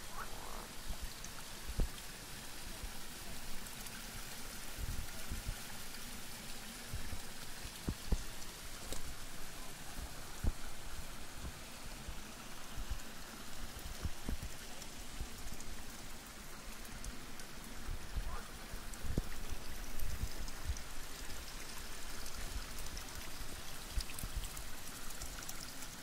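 Water pouring steadily from a spring fountain's pipe spout into a stone trough, with frequent low thumps of wind on the microphone.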